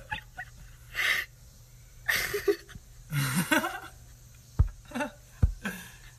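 Laughter in short breathy bursts about a second apart, with two dull thumps near the end.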